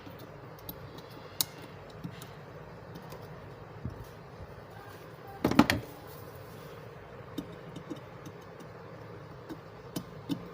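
Scattered small clicks and taps of a magnetic cabinet catch, screws and a flat-blade screwdriver being handled while the catch is positioned and screwed in, with a quick cluster of sharp clicks about halfway through.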